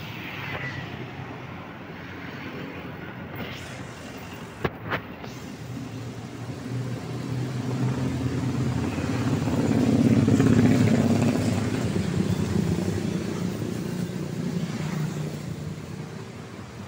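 A motor vehicle passing close by: engine hum that swells to its loudest about ten seconds in, then fades. Two sharp clicks near five seconds.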